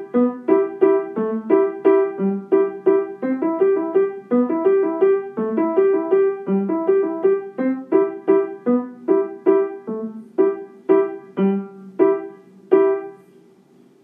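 Background piano music: a steady run of quick repeated notes that thins out and stops about a second before the end.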